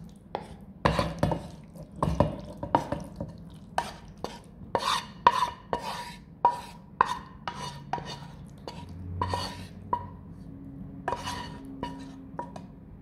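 A metal spoon scraping and knocking against a metal vessel while cooked onion-tomato masala is spooned into a mixer-grinder jar for grinding. It makes a string of irregular clinks and knocks, one or two a second, each with a short metallic ring.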